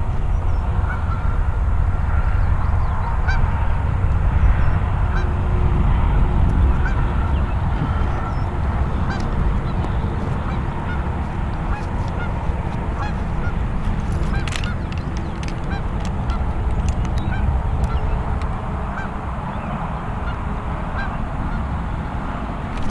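Wind rumbling steadily on the microphone, with faint short bird calls scattered throughout, and a single sharp click about two-thirds of the way through.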